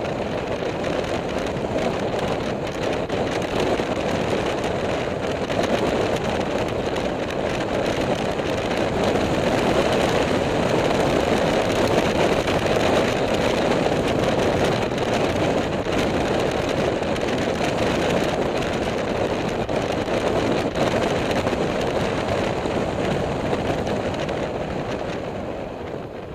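Motorcycle on the move, a steady rush of wind buffeting the microphone over the engine, quietening near the end.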